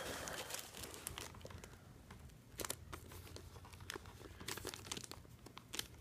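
Packaging crinkling and rustling as the boxed unit is handled, with scattered light crackles and clicks.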